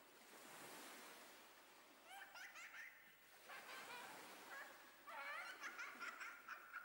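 Faint chirping of many birds over a soft rushing wash like surf. The wash swells over the first couple of seconds, and the chirps come in quick clusters from about two seconds in.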